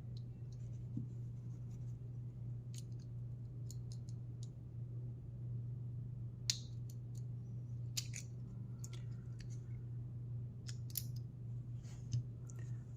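Lock pick and tension wrench scraping and clicking inside the 4-pin cylinder of a Master Lock 141D padlock, with a few sharper clicks about six and eight seconds in, over a steady low hum.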